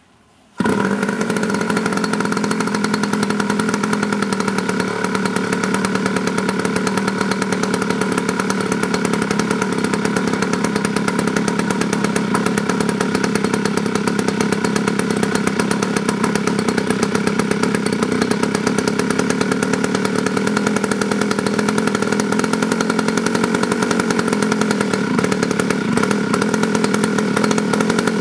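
DLA 56 single-cylinder two-stroke gasoline model-aircraft engine on a test stand, starting abruptly about half a second in and then running loudly at a steady speed.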